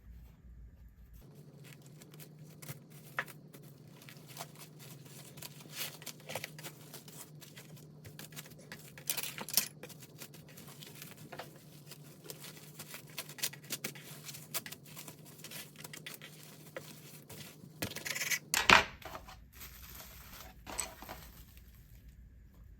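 Kitchen handling sounds while preparing food: scattered clicks, scrapes and rustling over a steady low hum that starts about a second in and stops near the end, with one sharp knock just before it stops.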